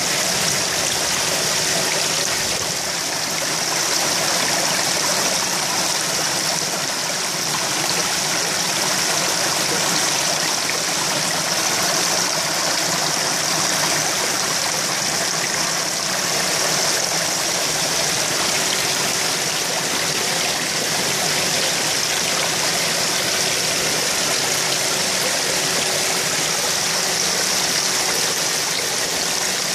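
Steady rush of churning, aerated koi pond water, the surface foaming and bubbling, with a faint steady hum underneath.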